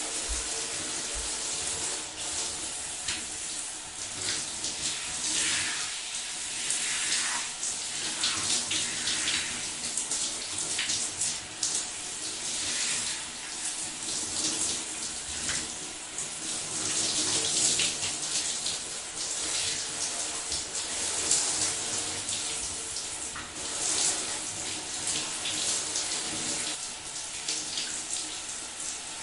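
Shower water running and splashing, a steady rush with uneven spatter.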